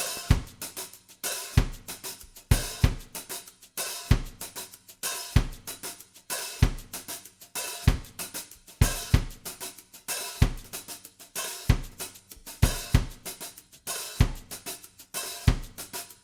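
Background music: a steady drum-kit beat of kick drum, snare and hi-hat cymbals.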